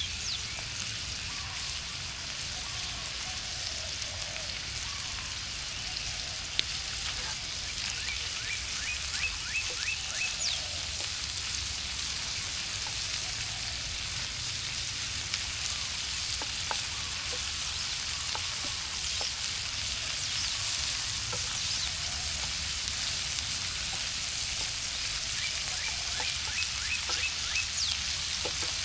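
Food frying in a pan over a campfire: a steady sizzle with small crackles, and one sharp pop about six and a half seconds in.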